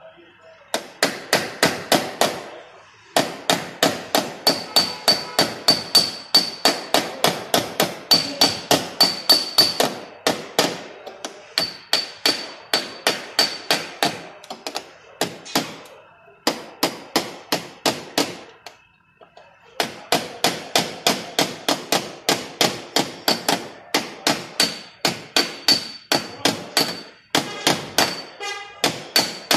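Hammer tapping a round-headed tap-down tool against a dented car body panel in quick, even strikes, about four a second, in runs broken by short pauses: paintless dent repair, working the dent out without paint.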